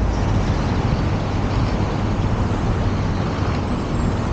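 Inline skate wheels rolling steadily over a concrete sidewalk and then brick pavers, a continuous rolling noise with city street traffic running behind it.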